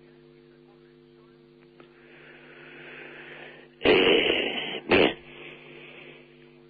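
A man clearing his throat, a loud rasp of about a second some four seconds in with a short second one just after, preceded by audible breathing. A steady low electrical hum runs underneath.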